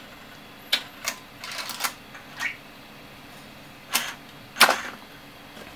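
HP (Quantum-built) LTO-2 tape drive mechanism unloading its cartridge: a string of sharp mechanical clicks and clunks at irregular spacing as the tape is unthreaded, the loudest near the end.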